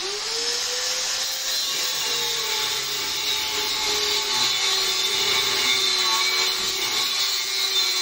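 Custom 400cc two-stroke twin engine running on its stand. It starts abruptly and holds a steady note that rises a little over the first second or so, then settles slightly lower.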